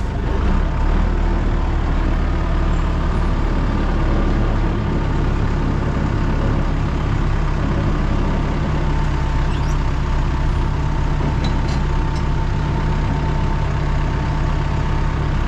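Heavy vehicle engine running steadily, its low note changing about five seconds in, with a few faint ticks later on.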